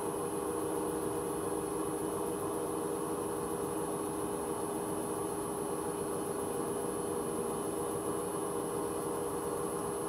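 Hoover H-Wash 300 Plus washing machine spinning empty at 600 rpm: a steady hum with a thin high-pitched whine above it. The drum bearings can be heard in the spin noise.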